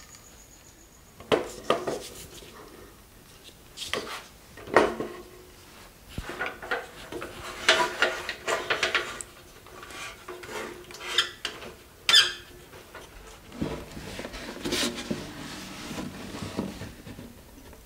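Wooden workshop handling: two painted wooden assembly supports knocking into place in the jaws of a Black & Decker Workmate workbench as the jaws are clamped, then a plywood cabinet carcass being set onto them. A string of separate knocks and clatters, with a steadier stretch of handling noise in the last few seconds.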